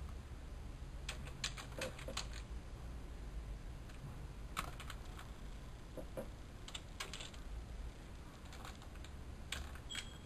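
Typing on a computer keyboard: irregular bursts of key clicks as an email address is entered, over a steady low hum.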